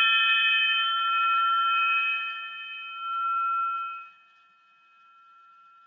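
Crystal triangle ringing after a strike, several clear high tones held together and slowly swelling and dipping in loudness. The ring fades away about four seconds in to a faint tail.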